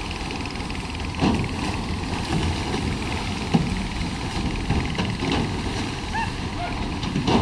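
Cattle jumping from a livestock barge into river water, heavy splashes every couple of seconds, loudest about a second in, around halfway and near the end, with the churning of swimming animals. Under it runs a steady low rumble.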